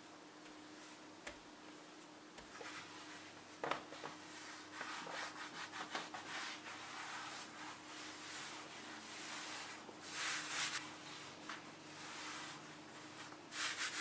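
Hands in thin plastic gloves rubbing, brushing and pressing floured pastry dough on a countertop: irregular dry scraping and brushing, with a single knock a few seconds in and louder rubbing about ten seconds in and again near the end.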